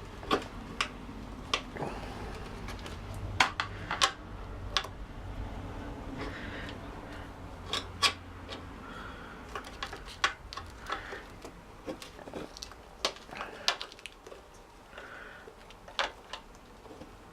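Steel tyre levers clinking and knocking against a motorcycle wheel rim while a new tyre's bead is levered over it, with irregular sharp clicks and some rubbing of rubber on metal. A low hum sits under the first half.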